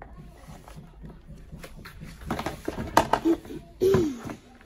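Knocks and rustling close to the microphone as a child moves about on the floor, loudest about two to three seconds in, followed by a short voiced sound that falls in pitch near the end.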